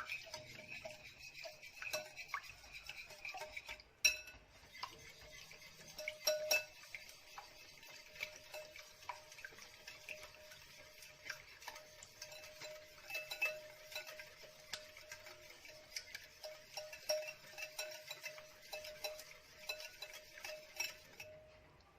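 Eggs being beaten by hand in a bowl: a whisk clicking quickly and unevenly against the bowl, with a faint steady hum behind it.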